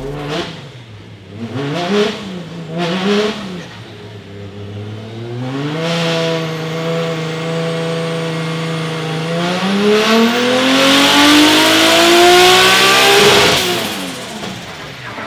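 Turbocharged 2JZ inline-six of a Toyota FRS drift car revving under load on a hub dyno. A few quick blips come first, then the engine is held at a steady speed for about four seconds. It then pulls up smoothly in pitch for about four seconds, and the throttle closes near the end.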